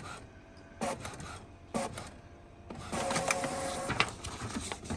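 Ricoh inkjet printer printing a test page: two short mechanism noises about a second apart, then a longer steady run with a motor hum in it as the printed page feeds out.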